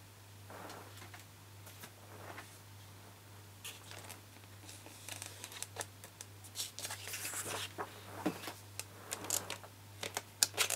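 Paper, card and a paper trimmer being handled on a desk: light rustles, taps and clicks, sparse at first and getting busier in the second half.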